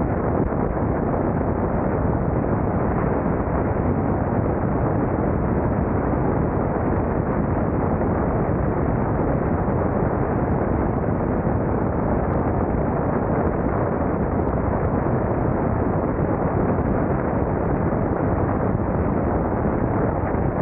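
Steady rush of wind on a motorcycle-mounted camera's microphone while riding a gravel road, with the motorcycle's engine and tyre noise blended in.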